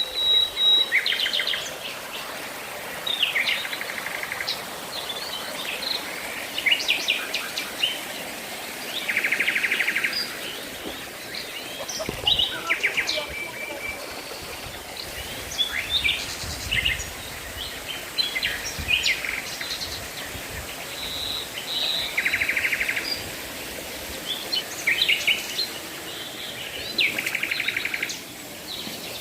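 Songbirds singing and calling throughout, with many short chirps and a buzzy trill repeated several times, over faint steady background noise.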